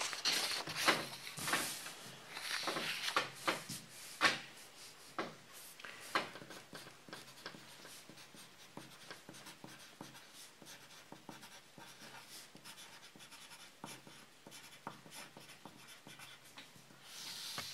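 A sheet of paper is handled and slid into place, with rustles and a few sharp ticks in the first several seconds. Then a pencil scratches faintly across paper as words are hand-written, with a longer stroke near the end.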